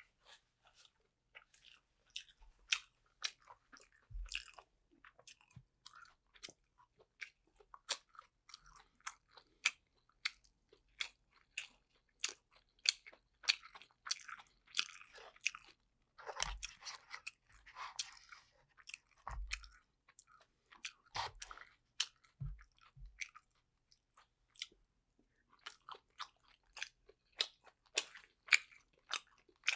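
Close-miked chewing of dumplings: a steady run of short wet mouth clicks and smacks, with a denser, slushier patch about halfway through and a brief lull later.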